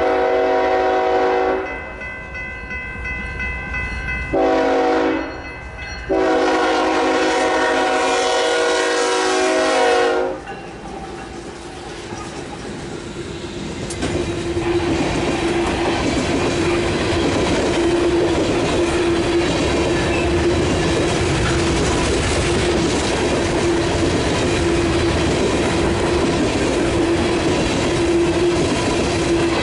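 A BNSF locomotive's Nathan K5HL five-chime horn finishing the grade-crossing signal: the end of a long blast about a second and a half in, a short blast, then a final long blast of about four seconds. After a brief lull, a string of covered grain hopper cars rolls past close by with steady clickety-clack over the rail joints and a steady ringing tone.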